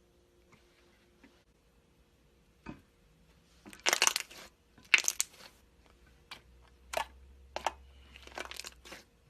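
Slime being squeezed and pressed by hand, giving a string of short crackling, crunching pops. The two loudest pops come about four and five seconds in, with smaller crackles after them.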